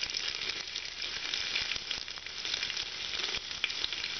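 Chopped garlic frying in hot oil with cumin and coriander seeds in a pressure cooker: a steady sizzle with scattered small crackles.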